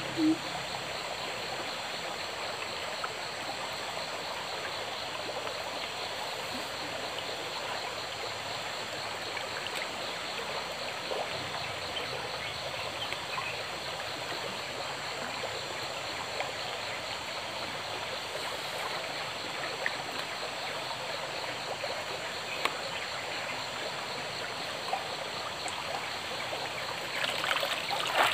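Small forest stream flowing with a steady, even rush of water. Near the end, splashing in the water starts and grows louder.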